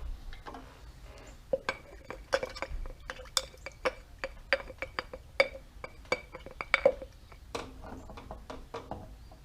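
Irregular clinks of a hard container ringing as the shine juice finish of shellac, boiled linseed oil and denatured alcohol is mixed, about three strikes a second, starting about a second and a half in and stopping about seven seconds in.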